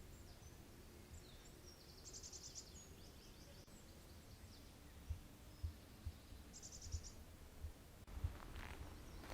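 Faint birdsong: high, rapid trills of quickly repeated notes, one run in the first few seconds and another about seven seconds in, with a few soft low thumps in between.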